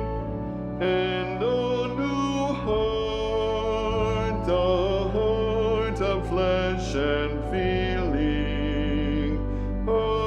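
A choir sings a hymn verse in a four-part arrangement over sustained low accompaniment. The voices, with vibrato, come in about a second in.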